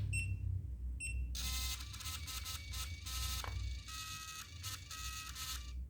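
Portable 80 mm thermal receipt printer beeps twice, then its paper-feed motor runs in a string of short whirring runs with brief pauses as it feeds and prints.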